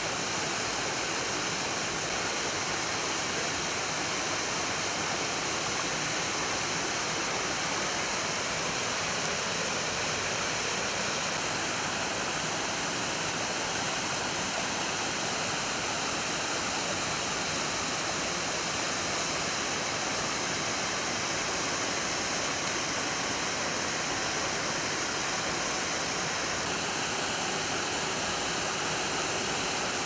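Partly frozen waterfall, water pouring down icy rock ledges in a steady, even rush.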